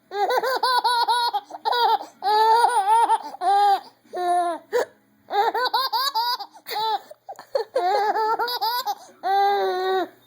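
A five-month-old baby belly-laughing in about ten high-pitched runs of quick pulsing laughs, with short breaks between them, set off by a woman's hiccups.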